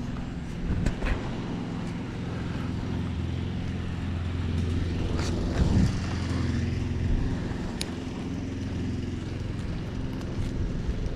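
Steady low hum of an engine running nearby, a little stronger midway, with a few short clicks and scuffs over it.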